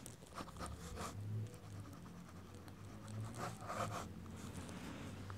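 A pen scratching across paper in several short, faint strokes as a signature is written.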